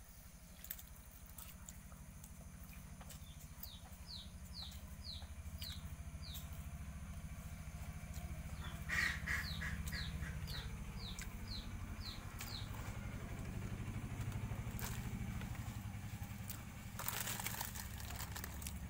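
A bird calling a run of short, falling chirps, about two a second, in two bouts, over a steady low rumble. A brief rustle near the end.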